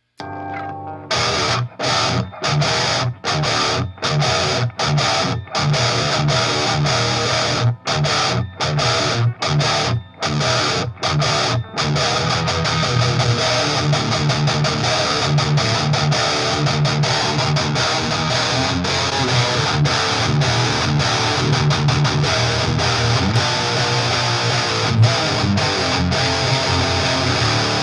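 Distorted electric guitar played through a Line 6 Helix modeler into a guitar amp with a 2x12 cabinet impulse response: stop-start riffing with short sharp breaks for the first dozen seconds, then continuous playing.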